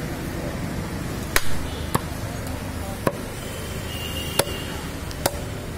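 Butcher's cleaver chopping beef on a round wooden chopping block: five sharp chops at uneven intervals of about a second, the first the loudest, over steady background noise.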